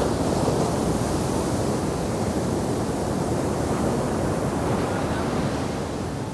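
Ocean waves breaking and washing up on a sand beach, a steady rush of surf that eases slightly near the end.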